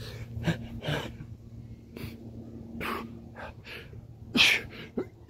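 A man breathing hard and fast in short, noisy gasps and exhales, winded at the end of a set of burpees, with one louder, harder breath about four and a half seconds in. A steady low hum runs underneath.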